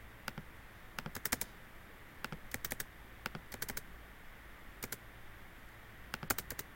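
Computer keyboard keys tapped in short, irregular clusters of sharp clicks, as a planting component is nudged and rotated in the drawing.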